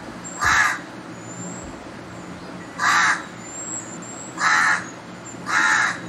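House crow cawing: four short, harsh caws at uneven intervals. This is the bird's ordinary, everyday call, heard from a recording. Faint thin, high whistles sound between the caws.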